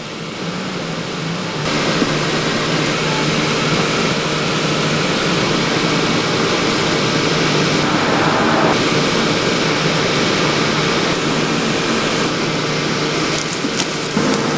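Steady machine hum and hiss, with no distinct events.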